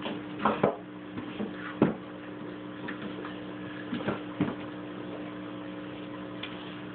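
Steady low electrical hum with a handful of short knocks and scuffs on a tile floor as dogs paw and mouth a toad, the sharpest tap coming nearly two seconds in.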